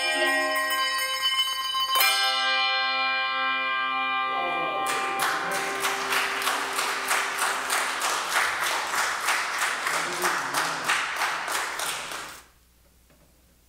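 Handbell choir playing: a ringing chord, a new chord struck about two seconds in, then the bells pulse in a fast tremolo of about four strokes a second. The sound cuts off suddenly near the end as the bells are stopped together.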